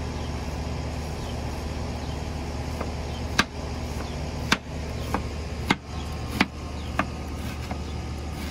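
Chef's knife chopping an onion on a wooden cutting board: about half a dozen sharp knocks, roughly half a second to a second apart, starting about three seconds in, over a steady low background hum.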